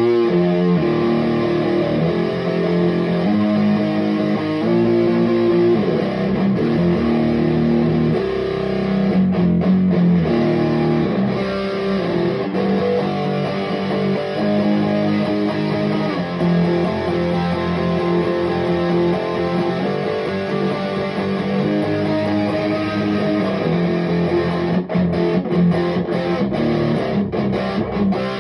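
Electric guitar music with some distortion, sustained notes and chords changing every second or two.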